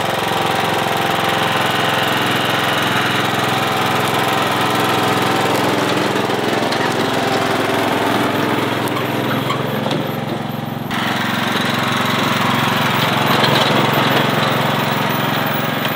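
John Deere 240 lawn tractor engine running steadily as the tractor drives along towing a loaded trailer. About eleven seconds in the sound changes abruptly, its higher hiss dropping away.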